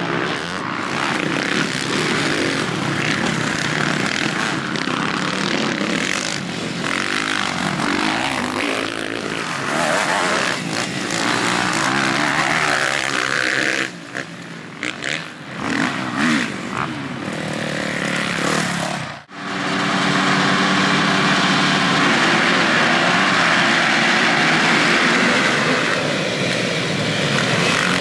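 Motocross bike engines on a dirt track, revving up and down as riders race past. Past the middle the sound cuts off abruptly. A louder, steadier sound of many engines together follows as a pack of riders gets away from the start.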